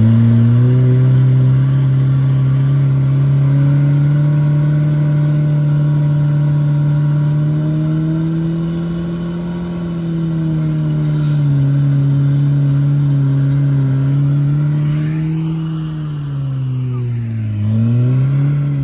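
Lifted Jeep's engine running at steady, moderate revs as it crawls up a rock ledge. The pitch rises and falls gently with the throttle, then sags briefly and picks back up near the end.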